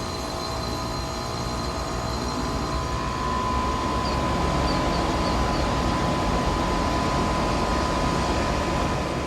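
Rheem Value Series 4-ton air conditioner's outdoor unit starting up: a steady hum and whine that grows louder from about three seconds in as the compressor and ECM condenser fan come up to speed.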